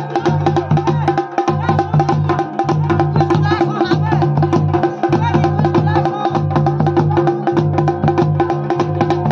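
Folk devotional music with fast, steady drumming and clicking percussion over sustained droning tones, and a low beat that pulses about once a second.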